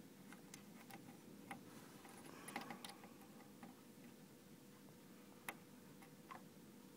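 Near silence broken by scattered faint ticks and clicks, with a small cluster about two and a half seconds in and a sharper click about five and a half seconds in: a resistor's metal leads tapping and scraping on a circuit board as they are set across another resistor.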